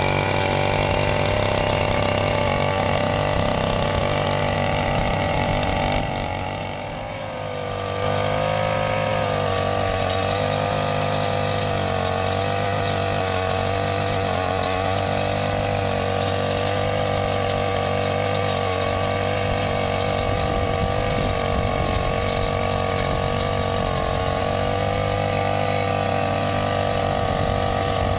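Small brush-cutter engine running steadily, driving tiller tines through soil at the end of its shaft. About six seconds in it slows and quietens for a couple of seconds, then picks back up, its pitch wavering with the load.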